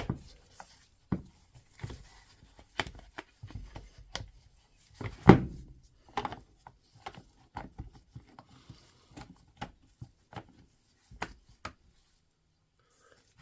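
Parts of a DeWalt DCH253 cordless SDS hammer drill being handled and fitted together during reassembly: irregular clicks and knocks of plastic and metal parts with some rubbing, the loudest knock about five seconds in.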